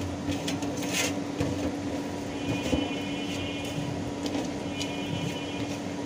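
A steady mechanical hum under faint scratching and tapping as fingers mix dry spice powders into a paste on a melamine plate.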